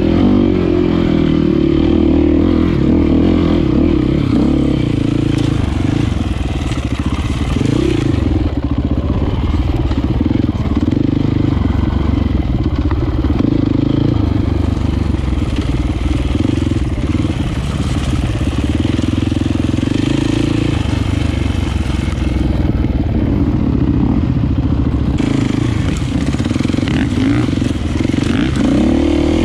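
Enduro motorcycle engine running continuously under load, its revs rising and falling as the throttle is opened and eased off.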